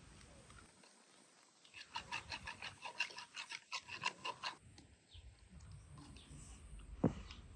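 A chicken clucking in a quick run of short calls, about five a second, lasting a few seconds. A single sharp knock near the end.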